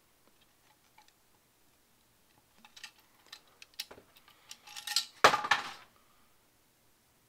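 Metal hip flask being handled: scattered light metallic clicks and clinks, building to a louder clatter about five seconds in as it is set down.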